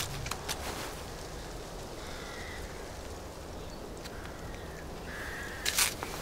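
Faint crow caws, three calls spread over a few seconds, against quiet outdoor ambience, with a brief sharp noise near the end.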